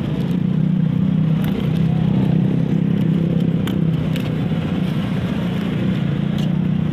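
An engine running steadily with a low, even hum. A few light clicks or clinks sound over it, about four times.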